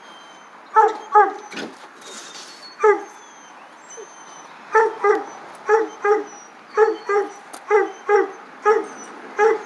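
A dog whining in short, downward-sliding yelps, about a dozen, often in pairs. Very faint high peeps sound behind them, likely the baby chicks.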